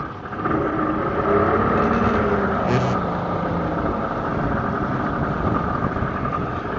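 Yamaha 225 outboard motor running steadily, with a constant drone.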